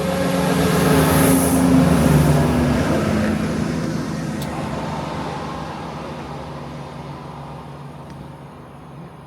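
Class 170 Turbostar diesel multiple unit passing at speed, loudest about two seconds in, its engine note dropping slightly as it goes by and then fading steadily away.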